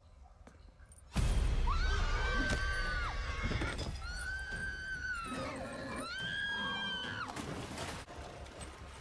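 A sudden loud crash about a second in, then a woman screaming three times, each scream very high-pitched and held for about a second and a half.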